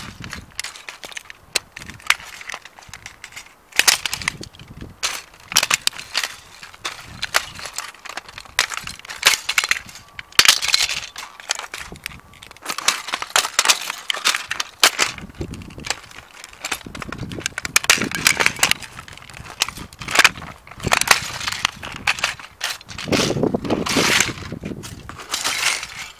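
A plastic toy tram being crushed under Dr. Martens steel-toe boots: repeated stomps, with plastic pieces snapping, cracking and crunching under the soles against asphalt.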